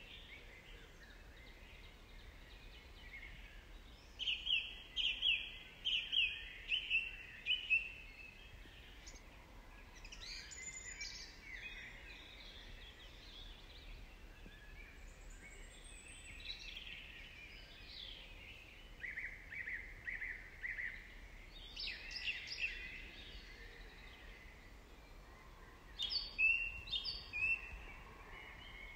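Songbirds singing in a forest: short phrases of quick chirping notes every few seconds, the longest a run of about seven notes, over a faint steady background hiss.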